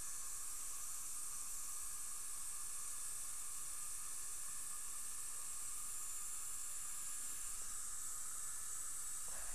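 A steady, even hiss, strongest in the upper range, holding at one level with no separate clicks or strokes.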